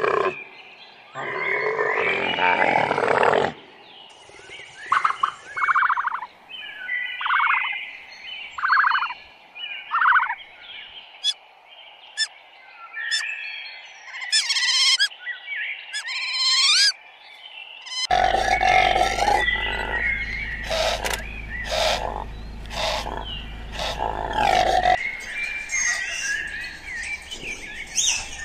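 A run of different animal calls: a loud low call at the start, then five short calls repeated about a second apart, then high chirps and whistles like birdsong. From about two-thirds of the way through comes a dense stretch of overlapping calls over a steady low hum.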